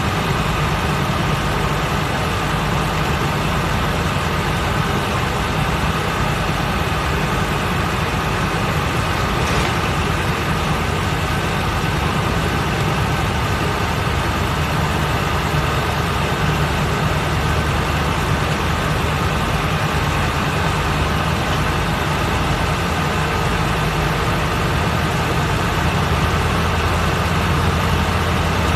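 Mitsubishi Fuso Aero King double-decker bus under way, heard from the upper-deck seats: a steady low engine drone with road and cabin noise. The low engine note grows stronger near the end.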